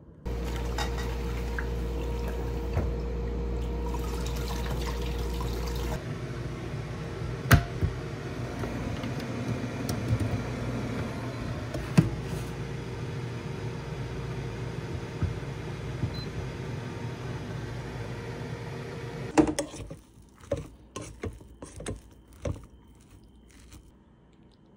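Water running steadily, like a tap, with a few sharp knocks, then giving way to a run of separate clicks and clatters near the end.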